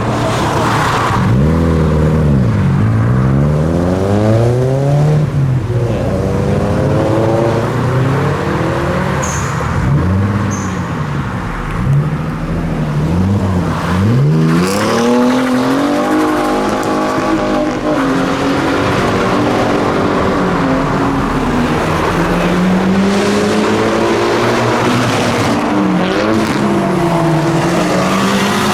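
Modified cars' engines revving hard as they pull away, the engine note climbing and dropping over and over as the throttle is blipped and gears change.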